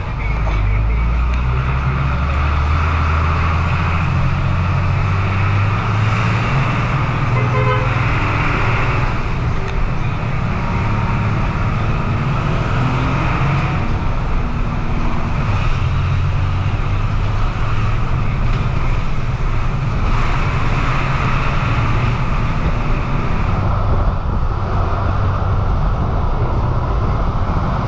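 Bus engine running and road noise heard from inside the moving bus, the engine note rising over the first few seconds and then holding steady.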